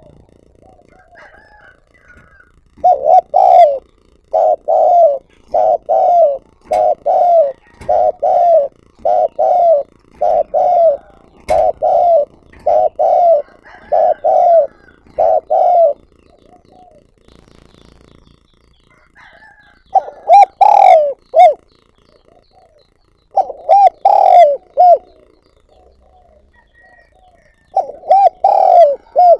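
Spotted dove cooing. A long run of about a dozen evenly spaced coos, roughly one a second, then a pause and a few shorter groups of coos.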